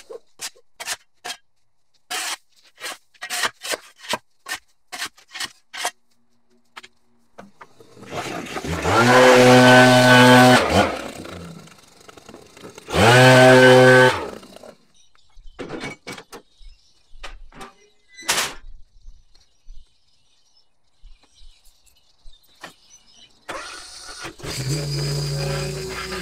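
Gas backpack leaf blower throttled up to full speed and let back down, twice, the second burst shorter. Scattered short clicks and knocks come before and between the bursts, and near the end the engine of a Hustler zero-turn mower starts running steadily.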